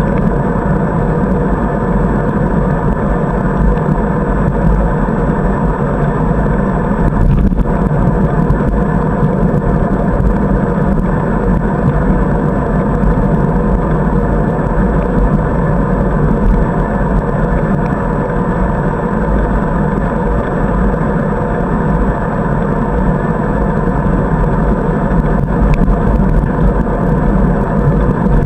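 Steady wind buffeting on the microphone of a camera mounted on a moving bicycle, mixed with the low rush of tyres on a paved path.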